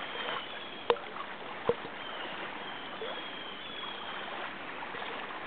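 A wide river's current rushing steadily, with two sharp clicks about one and nearly two seconds in.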